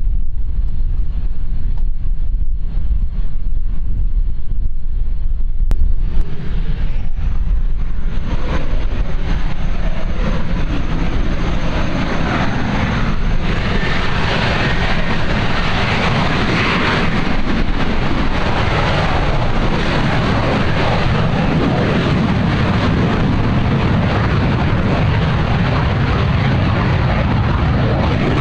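Northrop F-5's twin J85 turbojets, with wind buffeting the microphone at first. About six seconds in the engines spool up with a high whine, building into a loud, steady jet roar as the fighter runs up and rolls for takeoff.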